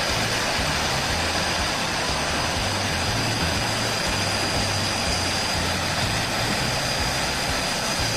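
Brazing torch burning with a steady, loud roaring hiss as the refrigerator tubing is heated for soldering.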